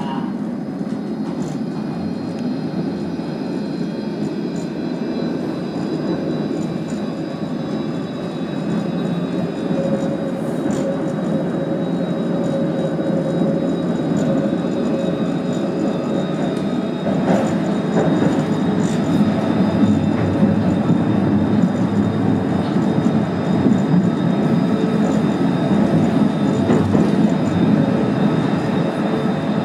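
City tram running along its rails, heard from on board: a steady rumble of wheels and running gear with a faint electric whine, growing louder partway through, with a few short knocks.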